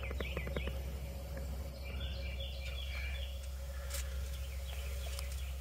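Small birds chirping and calling in woodland, over a steady low rumble. A short run of quick clicks comes near the start, and a single knock about four seconds in as the camera is moved.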